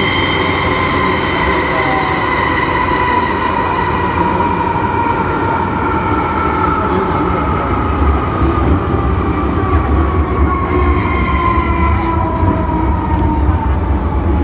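MTR Island Line M-Train's traction motors whining under electric braking, heard from inside the car over the rumble of the wheels. Several tones slide slowly down together as the train slows into the station, and the low rumble grows heavier about halfway through.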